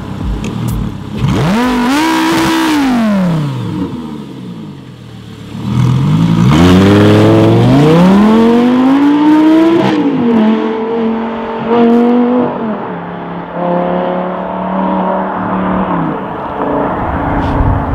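Audi R8's 5.2-litre V10 through a straight-piped exhaust, revving up and back down once, then launching and accelerating hard away through the gears with two upshifts. The note fades as the car pulls into the distance.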